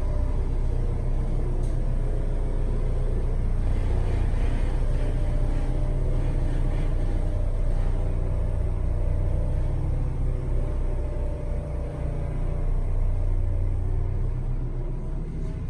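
Hydraulic elevator in travel, its drive giving a steady low rumble and hum. The rider judges the unit extremely low on oil, running very slow, with a growly motor he calls a "Chewbacca motor".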